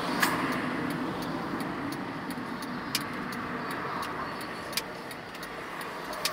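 City street traffic noise: cars passing in a steady wash of sound, with a few sharp clicks, the loudest just after the start.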